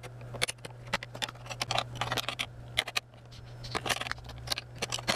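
A hand tool cutting through the thin steel lid seam of a sealed ammunition spam can: irregular sharp metallic clicks and scrapes, a few each second.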